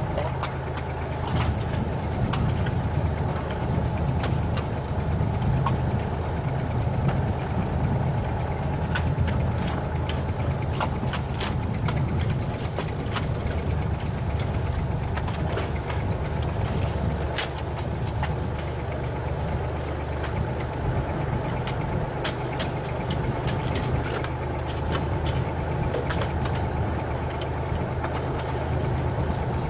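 Narrow-gauge diesel train running along the track: a steady low engine drone, with irregular sharp clicks and rattles from the wheels on the rails.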